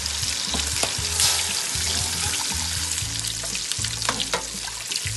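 Onion-garlic masala gravy sizzling steadily in a stainless steel pan, with a few sharp clicks and scrapes of a metal spatula stirring it.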